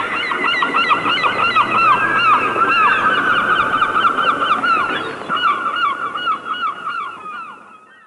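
A dense chorus of many birds calling at once, short arched notes repeated rapidly and overlapping, fading out over the last couple of seconds.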